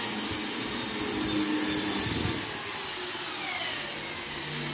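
Electric drill running, boring the screw holes for an accordion door's fittings. Its high motor whine holds steady, then slowly drops in pitch from about halfway through.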